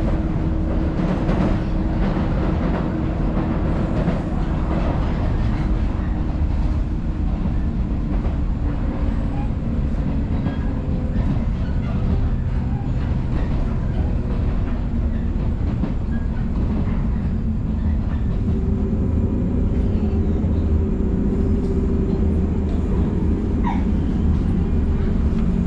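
Cabin sound of an old local electric train running on the rails: a steady low rumble, with a faint steady tone joining it about two-thirds of the way through as the train draws into a station platform.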